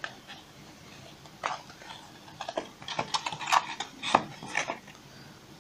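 A cardboard display card with metal pin badges being handled in and against a cardboard box: a series of short knocks, clicks and scrapes, bunched in the second half.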